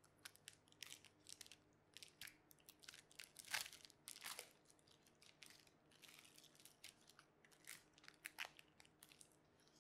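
Thin plastic film being peeled off processed cheese slices, crinkling in irregular short crackles, the loudest about three and a half seconds in.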